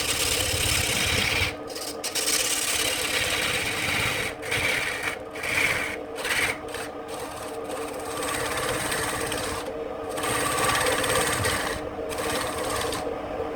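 Wood lathe running with a steady motor hum while a turning tool cuts into the spinning wood with a rasping scrape, the cutting noise breaking off briefly several times.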